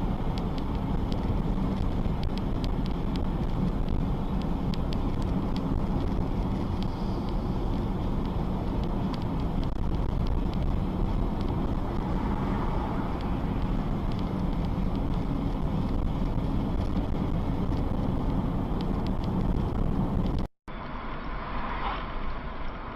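Steady engine and tyre noise of a car driving on a road, heard from inside the cabin through a dashcam microphone. About twenty seconds in it cuts out for a moment and resumes as a thinner-sounding, similar road noise from another dashcam recording.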